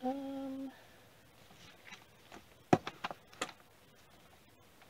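A woman's short, steady hum on one pitch, lasting under a second. Then, about three seconds in, a few sharp clicks and light knocks of things being handled.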